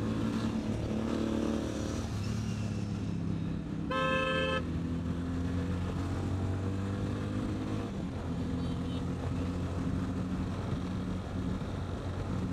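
Motorcycle engine running on the move, its pitch stepping up and down with changes in speed. A vehicle horn sounds once, briefly, about four seconds in.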